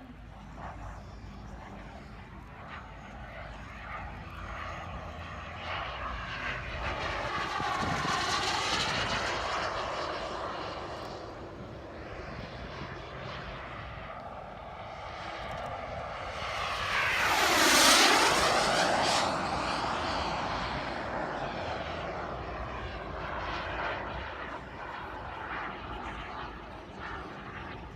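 Model jet turbine of a radio-controlled F-104 Starfighter flying past twice: a pass about 8 seconds in and a louder, closer one about 18 seconds in. Each pass has a jet whoosh whose tone sweeps down as the plane goes by, and the turbine stays faintly audible in the distance between the passes.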